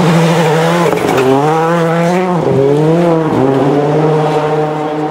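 Rally car engine at high revs as the car passes on a gravel stage. The engine note dips sharply and climbs back a few times.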